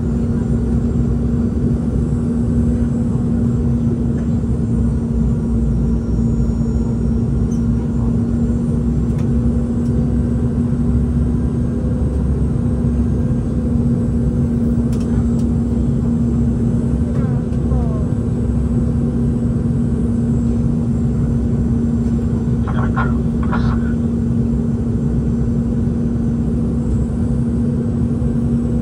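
Cabin noise aboard a Boeing 717-2BL with its rear-mounted Rolls-Royce BR715 engines: a steady, unbroken drone of engines and airflow with a constant low hum. A few faint brief sounds come through it about three quarters of the way through.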